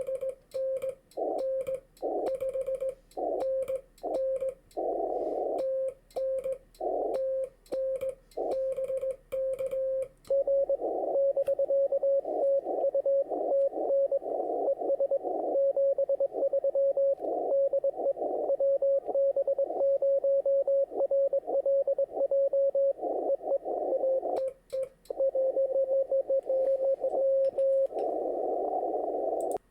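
Morse code (CW) on an HF amateur radio: one steady tone keyed on and off in dots and dashes, with band noise around it, louder and busier from about ten seconds in. It is a Parks on the Air contact: call signs, a 5NN signal report, TN and BK exchanged between the park station and the hunter.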